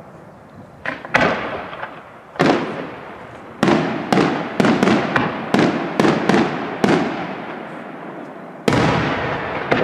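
Aerial firework shells bursting overhead: about a dozen sharp bangs, each trailing off in a rumbling echo. A few come in the first seconds, then a quick run of them from about three and a half to seven seconds in, and one more near the end.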